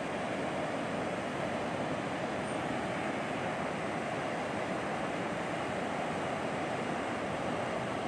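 Ocean surf breaking on a sandy beach, a steady rush of waves without pause.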